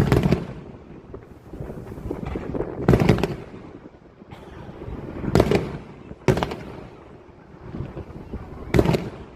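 Fireworks going off: about five sharp bangs at irregular intervals, each trailing into a rumbling echo.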